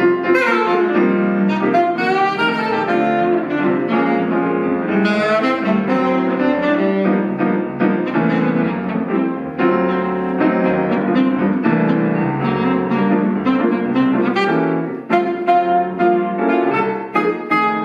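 Alto saxophone and jazz piano playing together, a duo with a steady stream of changing notes and no pauses.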